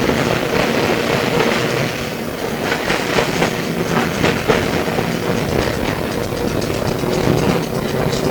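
Melbourne SW5-class tram running along the track, heard from inside the car: a steady rumble of wheels on rail with rattling and clicks, thickest about three to four and a half seconds in, over a faint steady hum.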